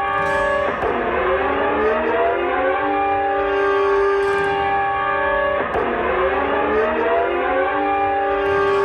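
Civil defense siren wailing on a held multi-tone chord that twice drops sharply in pitch and winds back up, about a second in and again some five seconds later.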